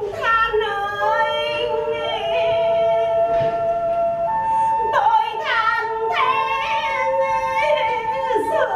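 A woman singing in traditional Vietnamese chèo style, a long ornamented line with sliding, bending notes, over steady held notes from an accompanying instrument.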